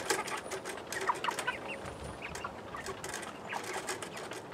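Flock of young Cornish cross meat chickens clucking and cheeping in short, scattered calls, mixed with many light clicks.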